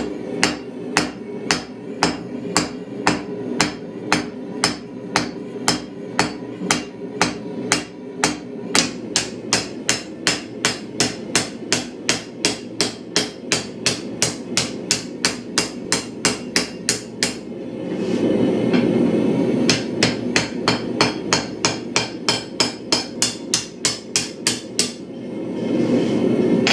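Hand hammer blows on a red-hot steel bar lying on an anvil, flattening and drawing out the round bar. The blows come at a steady pace of about two to three a second. They pause briefly about two-thirds of the way through and stop again near the end, leaving a steady low noise.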